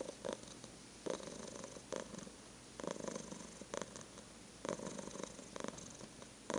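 Domestic cat purring while its head is petted. The purr swells and eases about once a second with its breathing.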